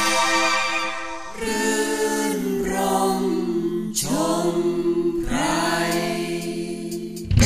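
Background music with long, held, choir-like sung notes, a new note sliding in every second or so. Just before the end a louder, fuller passage with a strong bass comes in.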